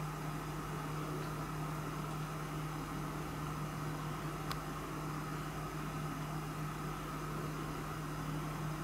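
A steady low hum, like an appliance or fan running in the room, with one faint click about halfway through.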